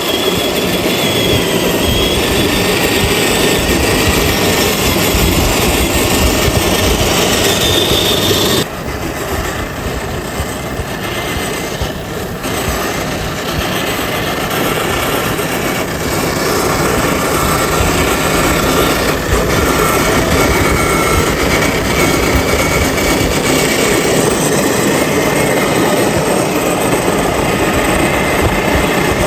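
Radio-controlled FJ40 crawler's electric motor and gears whining as it drives, the whine shifting in pitch with the throttle. It is quieter for several seconds about a third of the way in, then picks up again.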